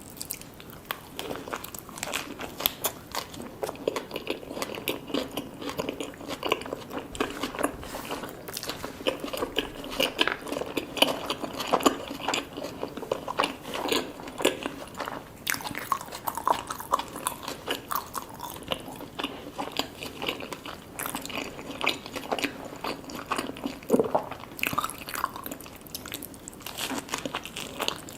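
A person biting and chewing food close to the microphone, with many small, irregular crunches and wet clicks.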